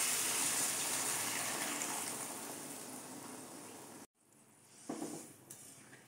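Water poured into a hot kadai of potatoes fried in spice paste, hissing and sizzling as it hits the hot oil. The sizzle fades steadily for about four seconds, then cuts off. After it come a few short scrapes of a spoon stirring the curry in the pan.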